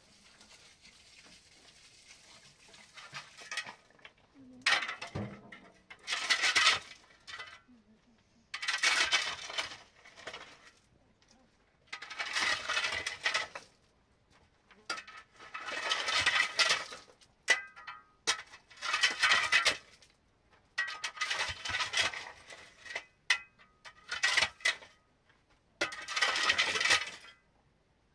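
Repeated bursts of gritty scraping and clinking, about ten of them, each roughly a second long and a few seconds apart: hand work with masonry materials.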